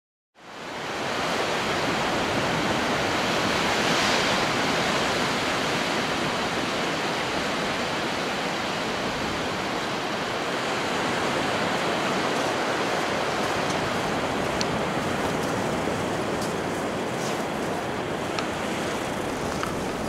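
Steady rush of sea surf on a beach with wind on the microphone, fading in about half a second in, with a few faint clicks near the end.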